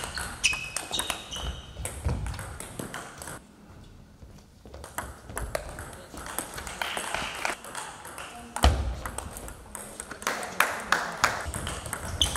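Table tennis balls clicking off bats and tables in quick, irregular rallies on more than one table, with a brief lull partway through.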